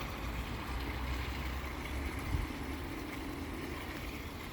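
Steady rush of a backyard pond waterfall, with a low rumble under it and a brief soft bump about two seconds in.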